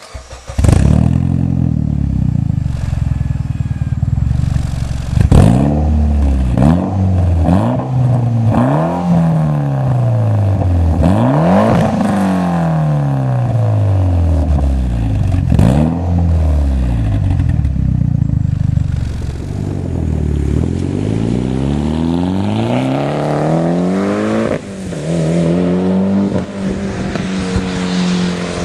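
2008 Mitsubishi Lancer Evolution X's turbocharged 2.0-litre four-cylinder, breathing through an AMS single-exit exhaust and test pipe, starting up about half a second in and then being revved repeatedly, the pitch climbing and falling with each blip, and held at a steady raised speed near the end.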